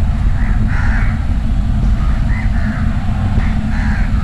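Crows cawing several times, short harsh calls about a second apart, over a steady low rumble.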